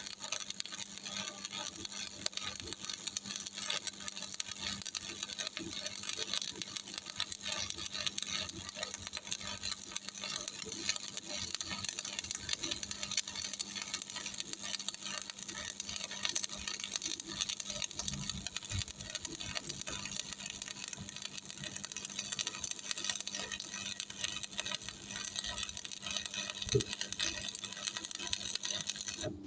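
Stick (shielded metal arc) welding with an E6013 3.2 mm electrode: a steady crackling, sizzling arc over a low electrical hum from the Miller Thunderbolt 225 welder. The crackle cuts off suddenly near the end as the arc is broken, leaving the hum.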